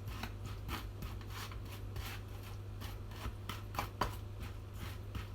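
A spoon scraping and pressing sticky puffed-rice mixture into a container: a steady run of soft, quick scrapes and rubs.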